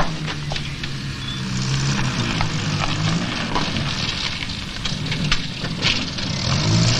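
A motor vehicle's engine running, a steady low drone, with a scatter of small clicks and crackles over it.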